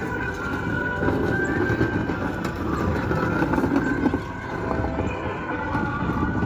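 Children's battery-powered ride-on bumper cars playing electronic siren-like tones over a low rumble.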